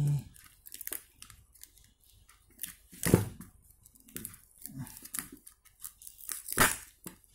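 Packing tape being peeled and ripped off a cardboard parcel by hand: a series of short rasping tears, the loudest about three seconds in and near the end.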